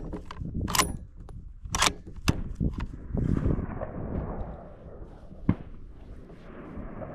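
Sharp metallic clicks and clacks from handling a Savage Axis .308 bolt-action rifle, the sound of its bolt being worked between shots: a few quick clicks in the first seconds, a stretch of rustling about three seconds in, and one last click past the middle.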